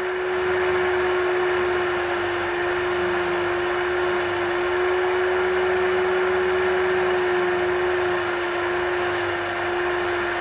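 Small electric drill-bit sharpener motor running steadily with its grinding wheel spinning. A workpiece is held against the wheel in two spells, adding a high grinding hiss: one from the start to about halfway, and another from a little past two-thirds of the way in.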